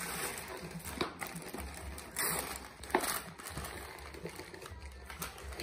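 Gift wrapping paper rustling and crinkling as a present is unwrapped by hand, with a few louder crinkles about one, two and three seconds in.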